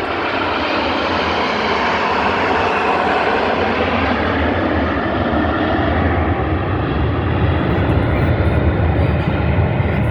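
A formation of airplanes flying past overhead, their engines a continuous roar that grows louder and deeper toward the end.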